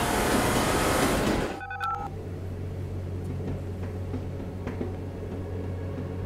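A loud rushing noise that cuts off abruptly after about a second and a half, then two short electronic tones and a steady low drone.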